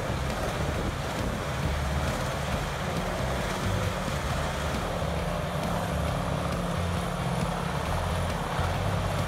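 Vermeer HG6800TX tracked horizontal grinder running under load as brush and small trees are fed into it: a steady, heavy mechanical rumble.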